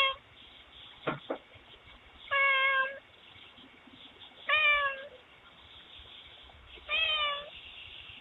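Domestic cat meowing: three clear meows about two seconds apart, each roughly half a second long, after the tail end of another at the very start.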